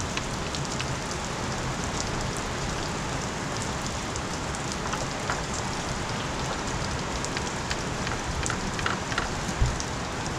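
Heavy rain drumming steadily on a roof, a constant hiss with scattered sharp drip ticks.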